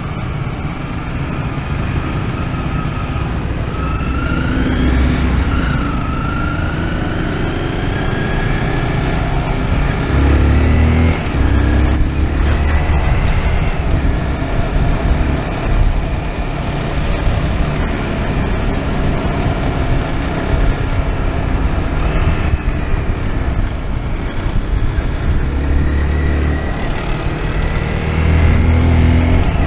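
Small sport motorcycle engine running on the move, its pitch rising and falling as it accelerates and eases off, with wind buffeting the microphone.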